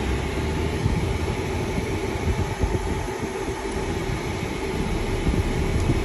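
Steady cabin noise inside a BMW SUV: a low, uneven rumble with a constant hiss, from the vehicle idling or creeping forward in a queue.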